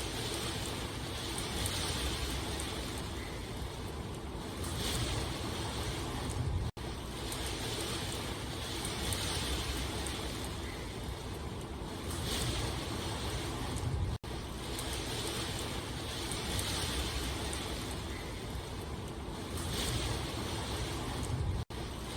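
Steady rain, a continuous even hiss with a low rumble. It is a short recording looped about every seven and a half seconds, with a brief dropout at each seam, three times.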